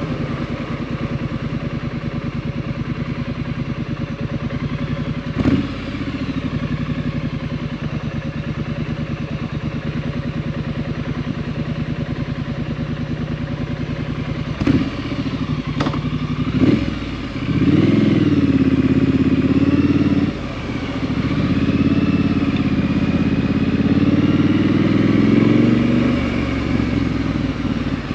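2018 Triumph Street Scrambler's 900 cc parallel twin running through a Vance & Hines aftermarket exhaust. For the first half it runs steady at a low, even speed, broken by a few short sharp bursts. Past halfway it revs up and pulls harder, rising in pitch, dipping briefly at a gear change and rising again, then eases off near the end.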